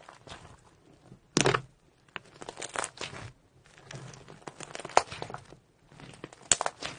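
Hands squeezing, pressing and stretching a large mass of glossy slime, making irregular crackling and popping. The loudest bursts come about a second and a half in and near the end, with a sharp snap about five seconds in.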